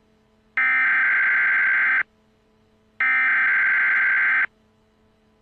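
Emergency Alert System (SAME) digital data bursts sent twice, each about a second and a half long, with about a second of quiet between them. Following straight on from the end of the spoken alert, they are the end-of-message signal.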